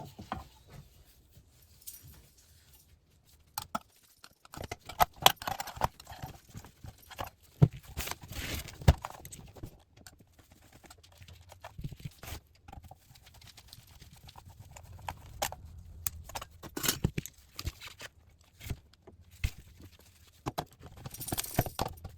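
Irregular clicks, knocks and light clanks of tools against a monitor's sheet-steel case and frame as it is handled and taken apart, coming in short clusters.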